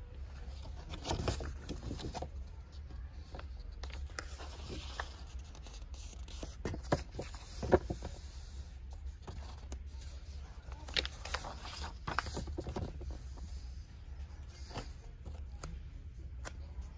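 Pages of a large paperback workbook being turned and pressed flat by hand: scattered paper rustles and soft taps, with one sharper knock a little under eight seconds in.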